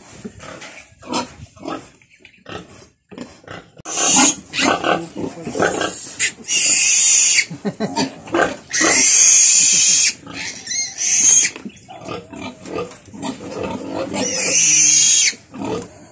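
Newborn piglet squealing shrilly in five loud bursts, starting about four seconds in, while it is held in a person's hands for its umbilical cord to be cut.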